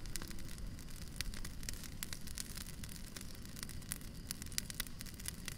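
Irregular crackling clicks over a steady low rumbling hiss.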